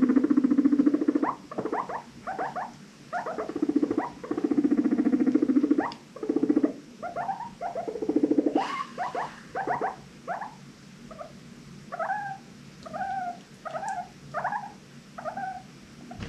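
Guinea pig purring in low, buzzing stretches, broken by short squeaks. In the second half it gives a run of short, clipped squeaks, about one every half second.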